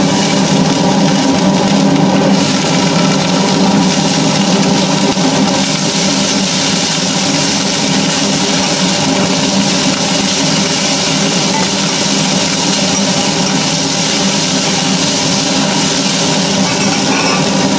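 Greens sizzling in hot oil in a stainless steel pot as they are stirred. The loud hiss starts as they go in, over a steady machine-like hum.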